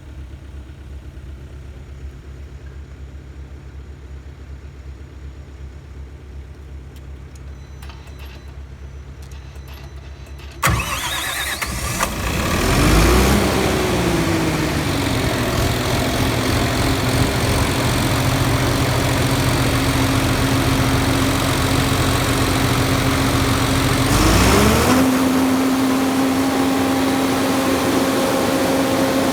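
Volvo diesel engine of a 204 kW generator set is cranked by its starter about ten seconds in and catches within a couple of seconds. Its speed flares briefly, then it settles to a steady idle. About 24 seconds in it rises to a higher steady running speed. Before the start there is a low steady rumble.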